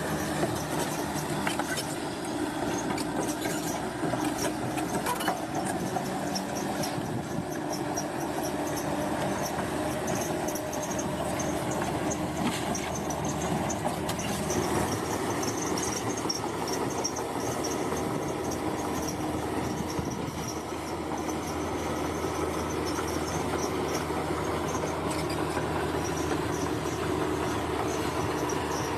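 Bulldozer's diesel engine running steadily, with metallic squealing and clanking from its steel crawler tracks.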